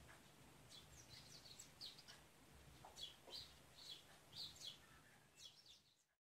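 Faint birds chirping, many short high chirps over a low steady hum; all sound cuts off suddenly near the end.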